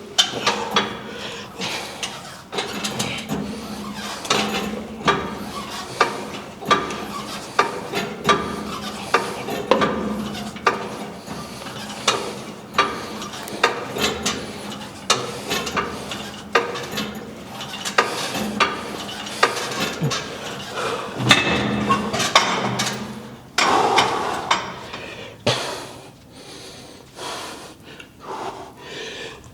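Weight stack of a hip abduction machine clinking and knocking with each rep, about once a second, over a low steady hum; the knocks grow fewer and quieter near the end.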